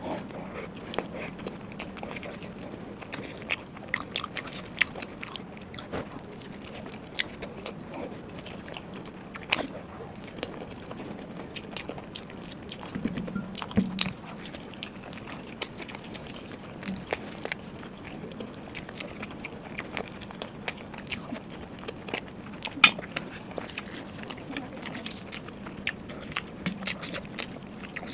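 A person chewing and biting food close to the microphone, mukbang-style, eating naan with paneer butter masala: irregular mouth clicks and smacks, a few every second.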